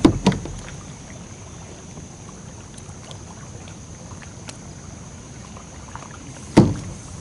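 Light clicks and knocks of a bluegill being handled and unhooked aboard a plastic kayak, over a low steady hiss. A single sharp thump about six and a half seconds in is the loudest sound.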